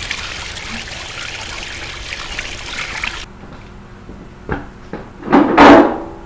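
A garden hose pours water over a cast-iron Ford 302 V8 engine block, splashing and running off it. After a sudden cut, the bare block is shifted in a metal wagon: a short knock, then about five seconds in a loud grating scrape with a metallic ring.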